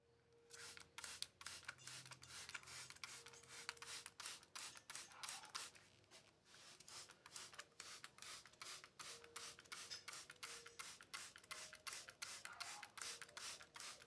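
Faint, rhythmic rubbing strokes, about three a second, with a short pause near the middle.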